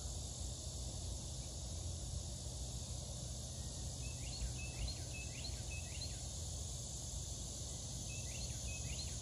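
Outdoor ambience: a steady high insect drone over a low rumble. A bird sings a phrase of short rising notes four times about four seconds in, and three more times near the end.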